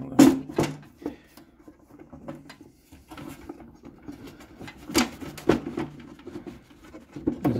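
Plastic casing of a Chinese diesel air heater being slid back onto the unit and handled, giving scattered sharp plastic knocks and clicks: a pair near the start, another pair about five seconds in, and one near the end.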